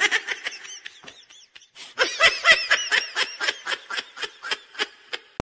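High-pitched laughter sound effect, rapid giggling in two bouts. The second bout starts about two seconds in and fades away, and a click cuts it off near the end.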